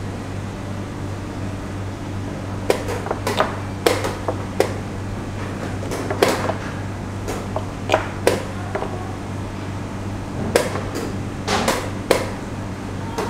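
Wooden chess pieces clacking down on a wooden board and chess clock buttons being hit in a fast blitz game: a rapid run of sharp knocks beginning about three seconds in, in clusters of two or three. A steady low hum lies underneath.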